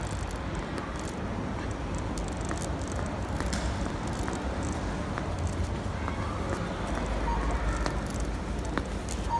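Outdoor urban ambience: a steady low rumble, a little louder about seven seconds in, with scattered faint clicks of footsteps on stone paving.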